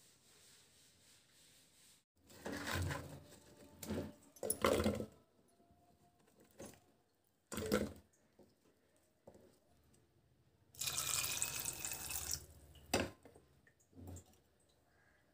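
Water poured into a pressure cooker over cut drumstick pieces: a steady pour of about two seconds. Before it come a few shorter splashy handling sounds, and a couple of sharp knocks follow.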